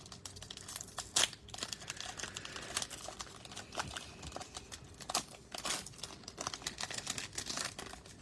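Plastic wrapper of a Panini Donruss basketball card pack crinkling and tearing as it is opened by hand, with irregular sharp crackles, the loudest about a second in.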